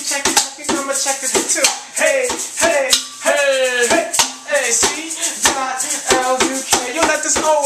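Hip hop beat with steady, evenly spaced percussion ticks, with a man's voice rapping over it.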